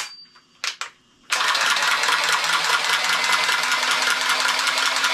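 A few clicks as a cordless tubing cutter is fitted onto copper pipe, then, about a second in, its motor starts and runs steadily as it cuts through the pipe.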